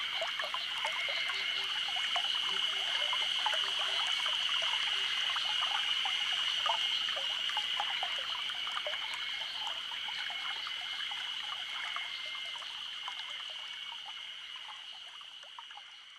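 Cicadas droning steadily over a small brook trickling and babbling; the whole sound fades out over the last few seconds.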